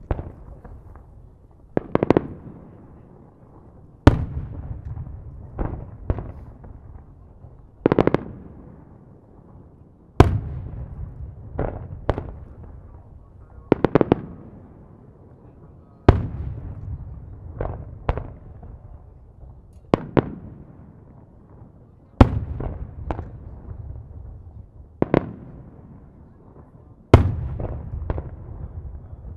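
Aerial firework shells bursting in a steady sequence, about one loud bang every two seconds. Each bang is followed by a rolling echo, and some have a few smaller cracks just after.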